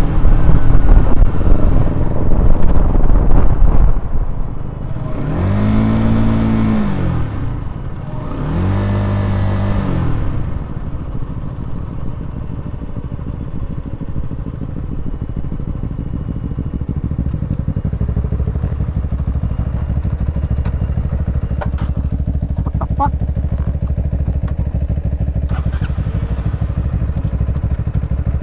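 Honda CBR125R's single-cylinder engine heard from on board. It runs loud at first, then is revved twice a few seconds in, each rev rising and falling in pitch, and then settles to a steadier, quieter running with a few light clicks near the end.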